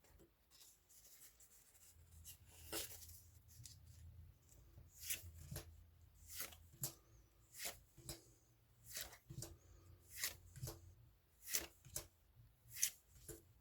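Pokémon trading cards being flicked through by hand, card slid off card, with about a dozen short soft flicks coming roughly once a second.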